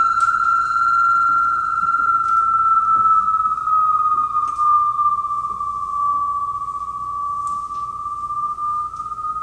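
A single high, sustained viola tone played through effects pedals and an amplifier, sliding slightly lower in pitch and back up. Its upper overtones fade out over the first few seconds, leaving a near-pure tone that keeps sounding after the bowing stops and she bends to the pedals, with a few faint clicks.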